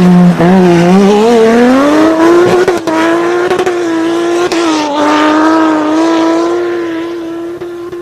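Nissan Patrol's swapped-in RB25DET turbocharged straight-six revving up over the first two seconds and then held at high revs, with tyres squealing. The sound fades away over the last couple of seconds.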